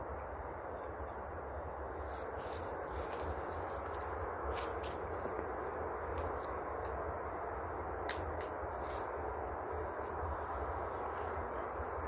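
Steady high-pitched trilling of a night insect chorus, over a low, even rumble of distant highway traffic, with a few faint ticks.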